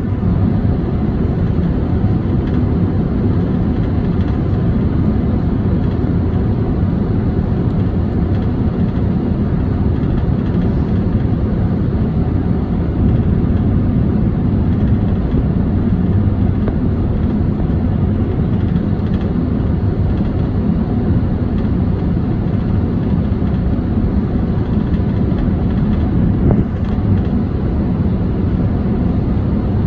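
Steady cabin noise of a Boeing 747-400 on final approach with its landing gear down: airflow and engine noise, heaviest in the low range, holding even.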